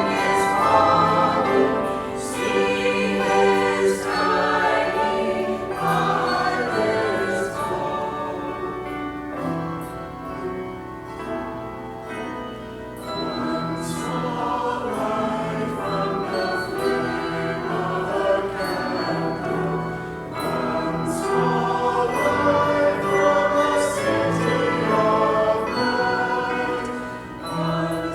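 Church choir singing a Christmas piece in several parts, softening between phrases about twelve seconds in and again near the end.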